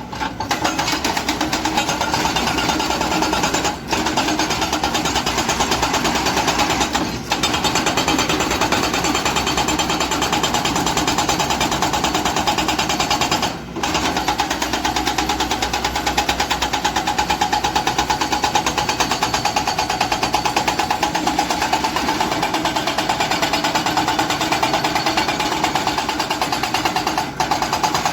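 Hydraulic breaker hammer on a Kobelco excavator pounding stone in a rapid, steady rhythm, with a few brief pauses.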